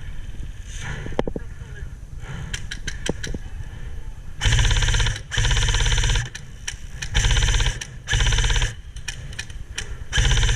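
An airsoft electric rifle firing full-auto in short bursts, each a rapid, even rattle. Five bursts begin about four seconds in, after a few scattered sharp clicks.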